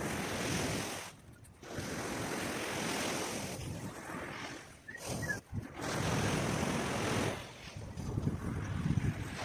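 Wind gusting across the microphone over the wash of surf, dropping away briefly twice.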